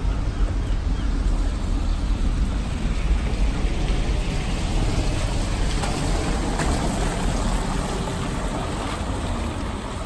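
Wet city street ambience: a steady low rumble with a hiss over it, swelling about six seconds in as a van drives past close by on the wet cobbles.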